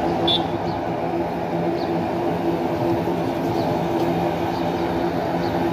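Engines of a small turboprop airliner running with a steady drone as it begins its takeoff from across the runway.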